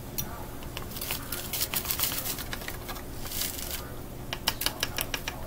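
Dry seasoning mix shaken from a foil packet into a glass measuring cup of broth: packet crinkling and seasoning pattering. Near the end comes a quick run of sharp clicks, a metal utensil tapping against the glass cup at about five taps a second.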